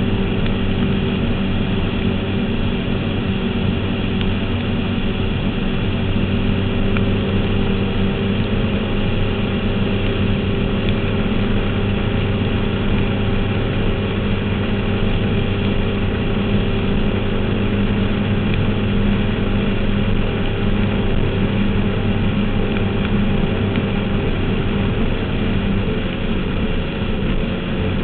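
Performance powerboat's engine running at a steady pitch while under way at speed, over a constant rush of wind and water.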